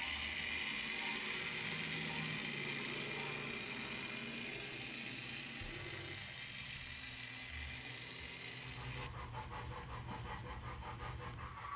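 HO scale model train running on the layout: a steady low hum that shifts in steps, joined about nine seconds in by a rapid, even clicking.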